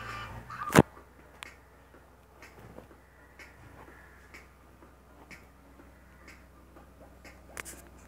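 A clock ticking about once a second, with one much louder sharp knock about a second in.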